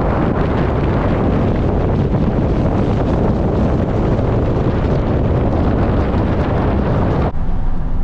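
Loud wind rushing over the microphone, cutting off suddenly near the end to a steady low hum.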